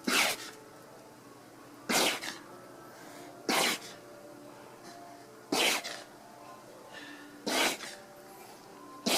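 Alpaca sneezing over and over: a short, sharp sneeze about every two seconds, six in a row, in a sneezing fit that won't stop.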